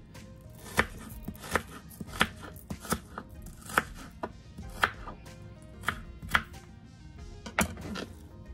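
Kitchen knife chopping a Vidalia onion on a plastic cutting board: about a dozen sharp knocks of the blade against the board, unevenly spaced, roughly one or two a second.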